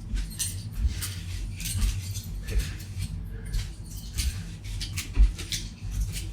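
Irregular small clicks, rustles and scrapes of things being handled, with a few dull low knocks, the loudest about five seconds in.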